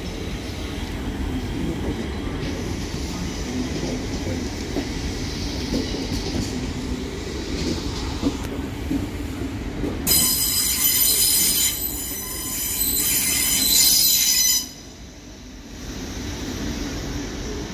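A train running through the station with a steady low rumble. About ten seconds in, a loud, high-pitched metallic squeal from its wheels starts, lasts about four seconds and stops abruptly, leaving a quieter rumble.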